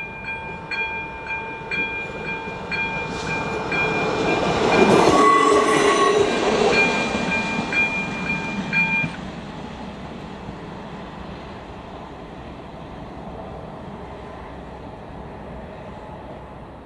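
Level-crossing electronic bell striking at a steady pace while a ČD class 810 diesel railcar passes, the train loudest about five seconds in. The bell stops about nine seconds in, and the railcar's noise fades away.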